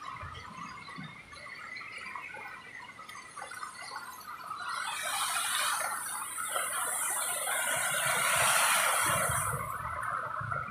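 Car tyres hissing and spraying through water on a flooded, rain-wet road as vehicles pass. The hiss swells about halfway through, holds loud, and eases shortly before the end.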